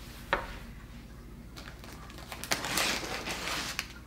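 A single knock just after the start, then plastic wrapping crinkling and rustling for the last couple of seconds as wrapped fabric bundles are handled and lifted out of a cardboard box.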